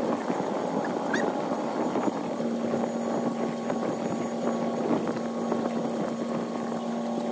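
Outdoor ambience of wind and water with a steady low motor hum coming in about two and a half seconds in, and a few faint clicks.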